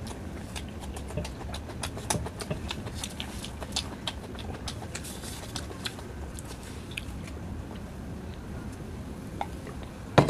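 Eating by hand: short wet clicks and smacks from chewing and from fingers working rice and curry gravy on a steel plate. They come thickly for the first six seconds or so, then thin out, with one sharper click near the end. A steady low rumble sits underneath.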